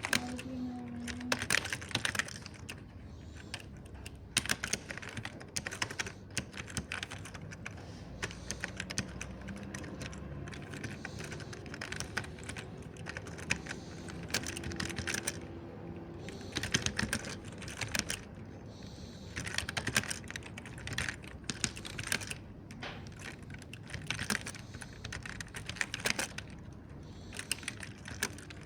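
Typing on a mechanical keyboard with soft clicks, in bursts of quick keystrokes broken by short pauses.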